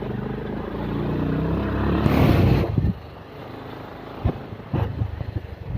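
Motorcycle engine running, building to a louder rev about two seconds in, then dropping off sharply; a few short knocks follow near the end.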